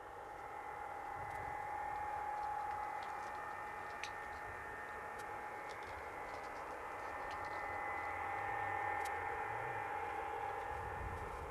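Steady hiss with a constant high-pitched hum, a fluctuating low rumble of wind on the microphone, and a few faint light clicks.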